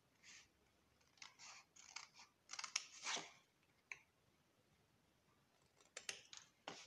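Small scissors snipping through beige cardstock along its fold lines in short cuts. There is a run of snips in the first half, a lone snip around the middle, then a few more near the end.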